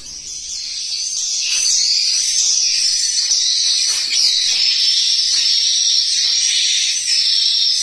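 Recorded swiftlet lure calls playing through tweeter speakers inside a swiftlet house's nesting room: a loud, dense, high twittering of chirps, growing louder over the first second or so and then steady. The calls are played to draw swiftlets into a building that has no birds yet.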